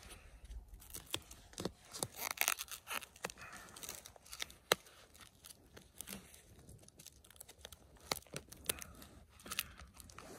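Adhesive tape being pulled off its roll in short, irregular rips and wound around insulation on a pipe end, with crinkling and sharp clicks, busiest a couple of seconds in.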